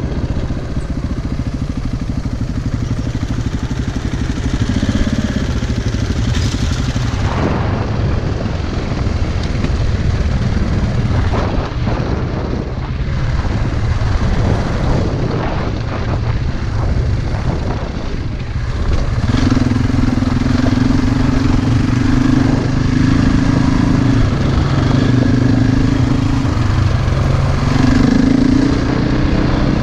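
Single-cylinder four-stroke enduro motorcycle engine running while ridden. From about twenty seconds in, a louder engine note comes in and drops out briefly several times.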